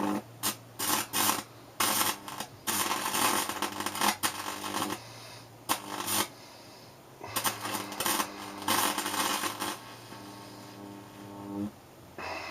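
High-voltage arc from a microwave oven transformer, fed through mercury-lamp ballasts, buzzing and crackling in repeated bursts as it is drawn across bird's eye chillies, scorching them. The bursts stop and start about a dozen times, some brief and some lasting a couple of seconds.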